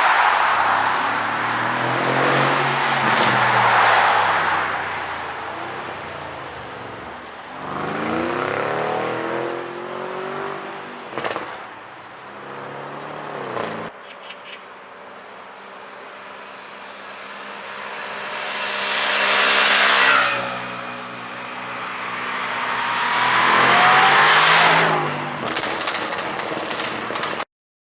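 Twin-turbo V8 of a BMW F10 550i with a pop-and-crackle ECU tune, revving up and falling back several times, with sharp pops from the exhaust as the revs drop and a quick run of crackles near the end. The sound cuts off suddenly just before the end.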